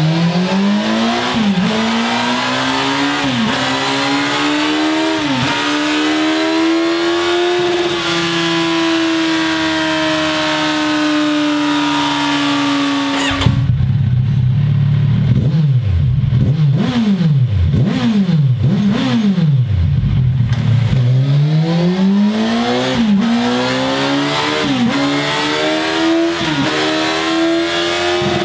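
Kawasaki Z1000SX inline-four revving on a dyno. The revs climb with brief dips at each gear change, then hold high through the stock exhaust. About halfway the sound switches abruptly to the bike on Scorpion Serket Taper carbon slip-on silencers, giving five quick throttle blips and then another climb through the gears.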